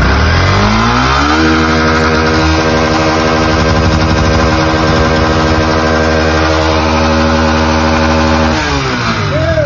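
Yamaha Fazer 250 single-cylinder engine revved up and held steadily at high revs for several seconds, then dropping back near the end. It is a high-mileage engine, about 240,000 km, said to burn oil.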